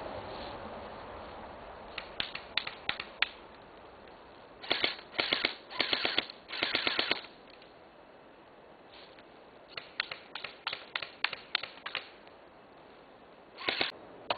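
Airsoft guns firing: runs of single shots, several rapid full-auto bursts in the middle, and a short burst near the end.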